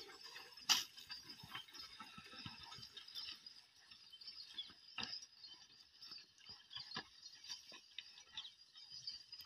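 A pair of bullocks pulling a wooden plough through tilled soil, heard faintly: scattered soft footfalls, scrapes and light clinks from the team and its harness. One sharp click comes about a second in.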